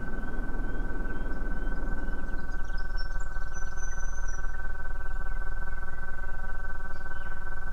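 Live electronic music: a steady drone of many held tones over a low rumble, with short high bird-like chirps scattered over it. A rough lower layer thins out about two seconds in.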